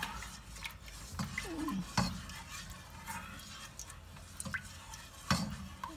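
Silicone spatula stirring sugar syrup in a pot, with a few sharp knocks against the pot, the loudest about two seconds in and a little past five seconds in.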